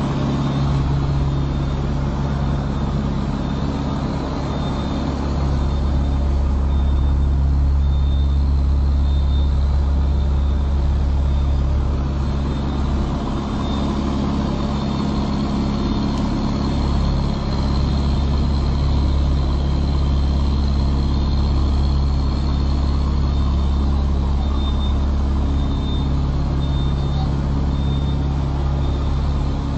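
Semi truck's diesel engine running steadily while the truck drives, a constant low drone.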